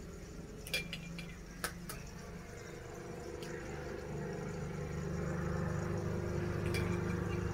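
A few light clinks of kitchenware in the first two seconds, over a steady low hum that grows louder in the second half.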